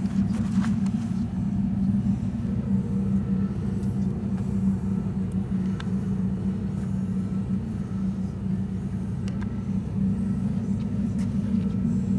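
Steady low drone of a cruise ship's machinery, with a few faint clicks.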